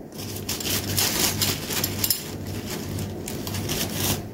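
A kitchen spoon scraping in a container, a dense run of quick, scratchy strokes.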